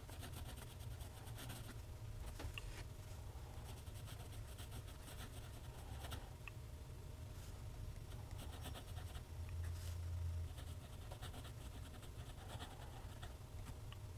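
TWSBI ECO fountain pen nib scratching faintly across Clairefontaine paper as cursive is written, in short runs of strokes, over a steady low hum.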